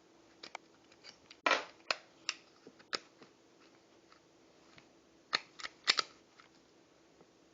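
Sharp metallic clicks and a short sliding scrape of compact 9mm pistols being field-stripped, their slides worked off the frames: a scrape about one and a half seconds in, scattered clicks, and a quick cluster of clicks near six seconds.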